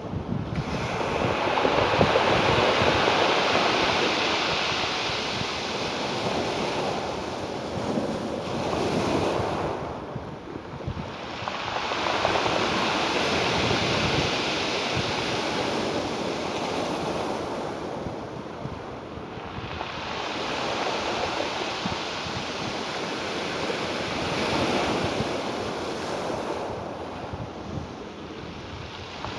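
Ocean surf: waves washing in and drawing back, the rushing swelling and easing off about every eight to nine seconds.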